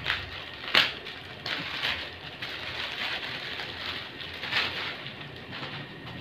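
Clear plastic packaging crinkling and rustling as it is handled and pulled open, with sharper crackles about a second in and again later.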